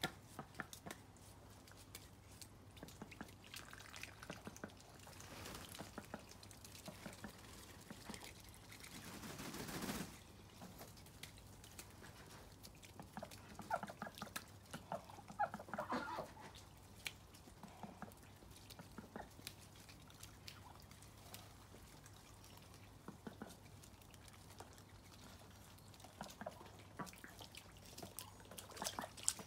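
Rainwater dripping and trickling, with ducks calling softly in short bursts now and then. A rushing noise builds for a few seconds and stops suddenly about ten seconds in.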